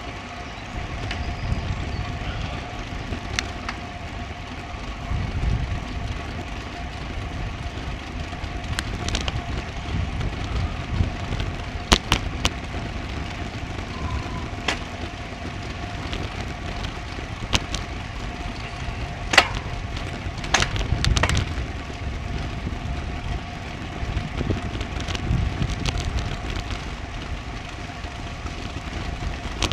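Wind buffeting an action camera's microphone on a bicycle climbing a road, with a steady rush of rolling noise and scattered sharp clicks and rattles from the bike, a few loudest about two-thirds of the way through. A faint steady tone runs underneath.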